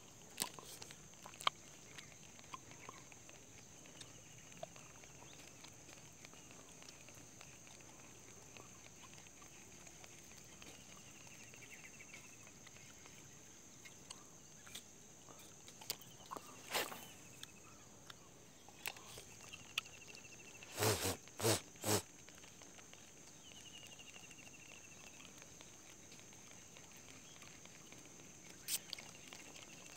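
Quiet riverside ambience while a lure is fished: a steady high-pitched hum, a few faint chirps, and scattered sharp knocks, including four quick ones about two-thirds of the way through.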